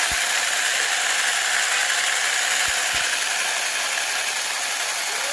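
Brushless cordless mini chainsaw running at steady speed, its chain giving a loud, even, high-pitched whirring rattle.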